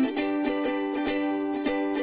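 Light background music of plucked strings, with even plucked notes at about four a second over a sustained chord.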